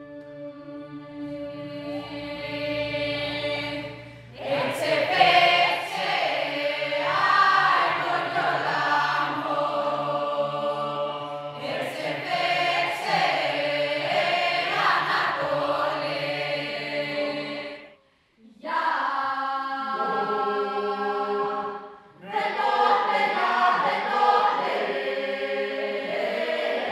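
Mixed choir of women's and men's voices singing Greek vocal music. A held, steady drone opens, and the full choir comes in about four seconds in. The singing breaks off briefly twice near the end.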